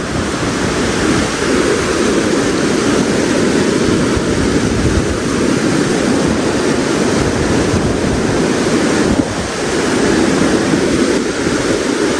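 Cold mountain stream rushing steadily over rocks, a loud even wash of moving water that dips briefly about nine seconds in.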